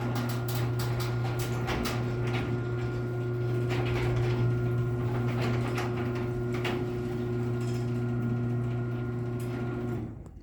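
Chamberlain garage door opener running to raise the door: a steady motor hum with clicks and rattles from the moving door and track. It stops abruptly about ten seconds in as the door reaches its open limit.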